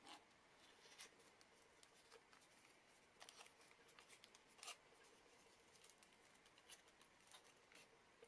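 Faint, scattered crinkles and clicks of a sheet of origami paper being creased and pinched into shape by hand.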